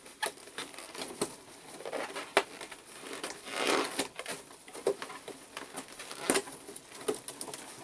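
Inflated latex balloons squeaking and rubbing against one another as they are pulled up through a flat plastic balloon grid frame, with rustling of the plastic netting and irregular small clicks. A longer, louder squeak comes about halfway through.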